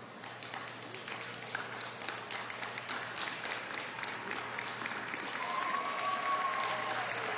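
Audience applauding, clapping that starts right away and builds steadily louder. A long, held high-pitched note rises over the clapping from about five seconds in.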